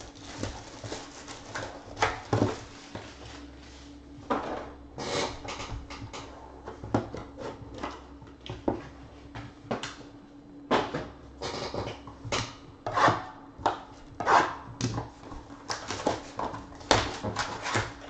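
Plastic shrink wrap and a foil trading-card pack wrapper being crinkled and torn open, with irregular crackles, rips and light knocks of the card box being handled.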